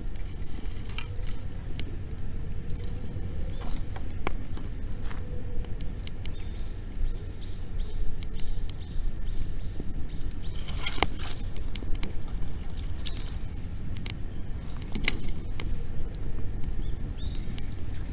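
Wood bonfire crackling, with scattered sharp pops over a steady low rumble. A bird calls in a quick run of short, high, repeated chirps about halfway through, and a few more single chirps follow near the end.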